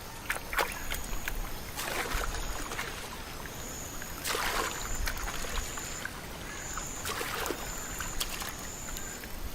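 Water and wet mud at the shore: trickling with several soft splashes, and a thin high whine that comes and goes through the second half.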